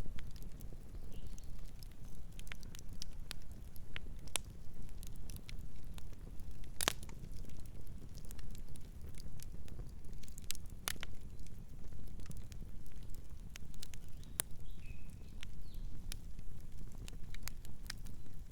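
Campfire burning: a steady low rumble with scattered sharp crackles and pops of the burning wood, one louder pop about seven seconds in.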